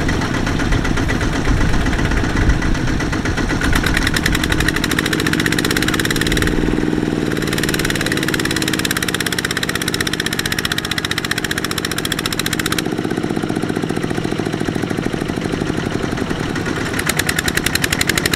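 Single-cylinder diesel engine of a Kubota RT120 walking tractor running hard under heavy load as it hauls a loaded rice trailer through deep mud. It chugs steadily, and its pitch shifts midway as it labours.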